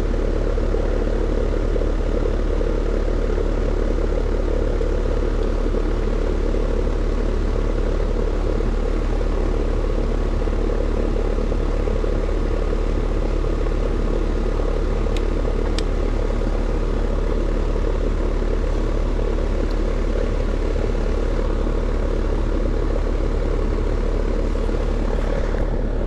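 Heat pump outdoor condenser unit running steadily: the fan and compressor make an even drone with a low electrical hum underneath. Two light ticks about halfway through.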